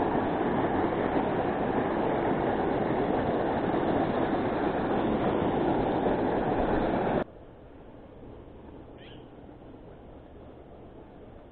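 Steady loud rushing noise that cuts off abruptly about seven seconds in, leaving quiet outdoor ambience with one short, faint high chirp about nine seconds in.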